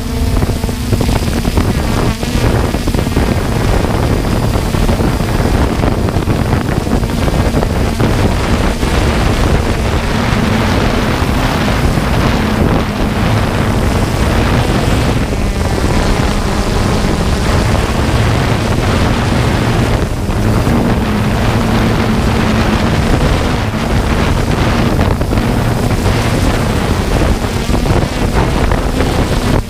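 3DR Solo quadcopter's motors and propellers running with a steady, slightly wavering hum, mixed with heavy wind noise on the microphone.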